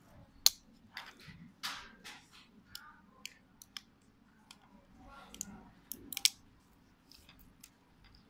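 Metal tweezers clicking and scraping against small coil springs and plastic parts, in irregular sharp clicks, the loudest about half a second in and a quick cluster about six seconds in, with soft rustling between.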